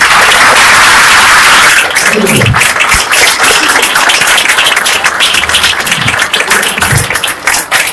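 Audience applauding, loudest in the first two seconds and tailing off near the end.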